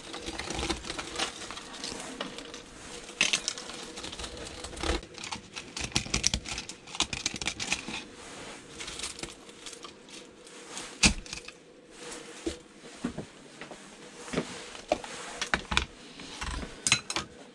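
A loose nest of copper wire being handled and gathered up: irregular rustling and crinkling with light clicks and taps, and one sharper tap about eleven seconds in.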